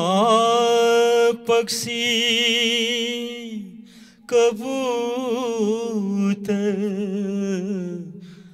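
A man singing unaccompanied in long, drawn-out notes with vibrato, the words 'pakshi' and 'kabutar' (bird, pigeon). One held phrase, a short break about four seconds in, then a second phrase that fades away near the end.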